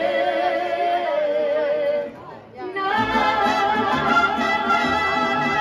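Mariachi band performing: a singer holds one long wavering note over the instruments, breaks off about two seconds in, then voice and band come back in on a long held chord with a deep bass underneath.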